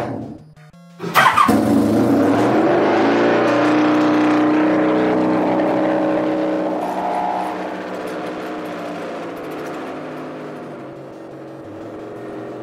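Honda V65 1100cc V4 engine running through an open exhaust at a high idle. It drops away for under a second near the start, comes back loud with a rev, and its speed falls and settles into a steady idle that slowly grows quieter.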